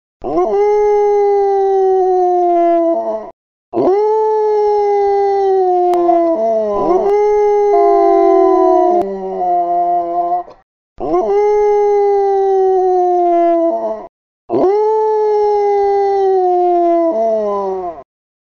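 Cane Corso (Italian Mastiff) howling: four long howls with short pauses between, each rising quickly at the start, holding and slowly falling in pitch, then dropping away at the end.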